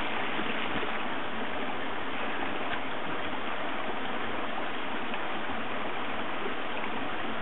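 Small mountain stream and waterfall: a steady, unbroken rush of falling and running water.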